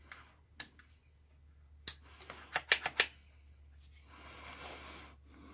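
Plastic detent clicks from the rotary function dial of a Kaiweets HT206A clamp meter being turned by hand. There is a single click about half a second in, another near two seconds, then three quick clicks close together, followed by soft handling rustle near the end.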